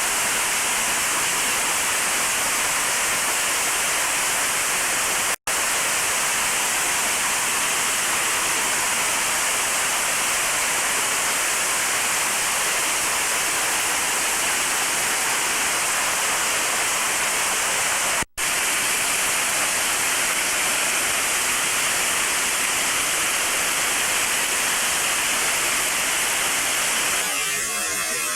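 Torrential typhoon rain pouring down, a dense steady rush that cuts out for an instant twice and eases slightly near the end.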